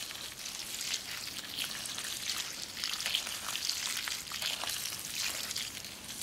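A stream of water poured onto leafy plants and potting soil in a fabric grow bag, splashing steadily.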